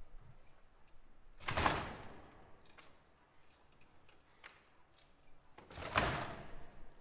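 Two short bursts of rattling noise, about four seconds apart, each starting sharply and dying away within about a second, with faint scattered clicks between them, from a contemporary piece for foosball table and video.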